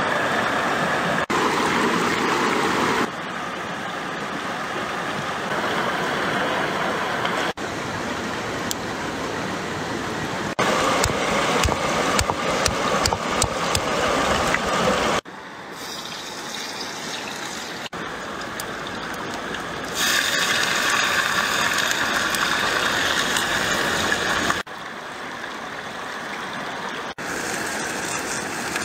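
Rushing mountain stream water, a steady rush that jumps in level at each edit cut. A run of sharp knocks comes between about 11 and 15 seconds in, a cleaver chopping on a wooden log.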